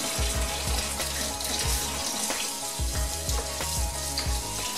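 Kitchen tap running and splashing onto plastic washing-machine detergent drawer parts in a stainless steel sink as they are rinsed by hand.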